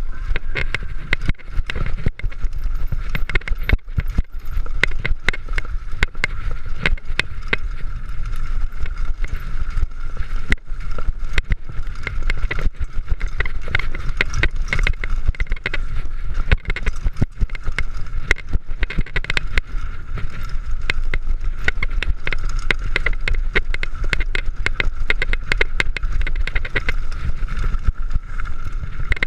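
Mountain bike riding down a rough bike-park trail: a steady stream of rattling and irregular knocks from the bike over the ground, with a heavy wind rumble on the microphone and a steady whir underneath.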